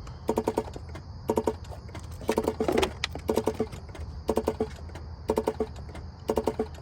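Infiniti G37's electrical system making a strange repeating noise: quick bursts of five or six rapid clicks, about one burst a second. The owner takes it for a sign of bad wiring.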